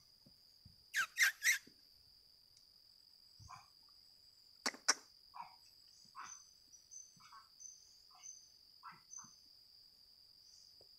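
Steady high-pitched insect drone of forest crickets or cicadas, with animal calls over it. Three loud calls come about a second in, then two sharp clicks near the middle, then a run of about eight short calls through the second half.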